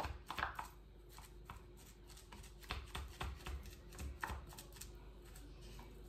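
Small silicone spatula scraping and tapping inside a blender jar, pushing chopped parsley back down toward the blades while the blender is stopped. Faint, irregular short scrapes and clicks.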